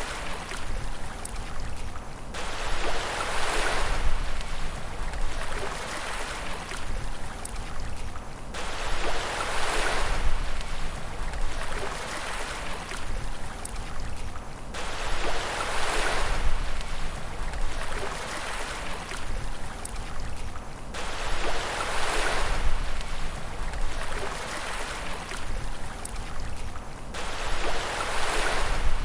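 Sea waves breaking and washing in, each swell starting abruptly and fading over a few seconds, about every six seconds over a constant rush of surf.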